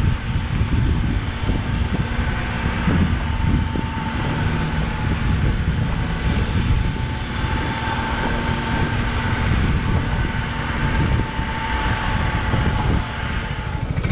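ATV engine running under way, with heavy wind buffeting on the microphone and a steady whine over the top.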